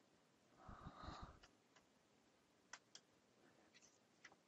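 Near silence, with a faint breath into a headset microphone about a second in, then a few faint, sharp computer clicks from mouse and keyboard.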